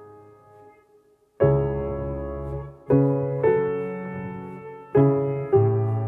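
Slow, calm piano music. A chord dies away to a brief near-silence, then new chords are struck about every second or so, each ringing and fading.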